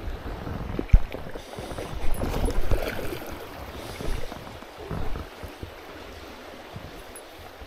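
Running river water with a rumbling, noisy hiss, a sharp knock about a second in and a louder stretch of water noise around two to three seconds.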